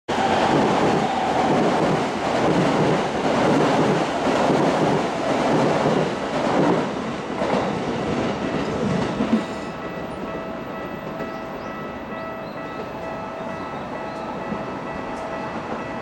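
A train passing close by, its wheels clattering rhythmically over rail joints, loud for about the first nine seconds. The clatter then drops away suddenly, leaving a quieter steady rail-yard rumble with faint ringing tones.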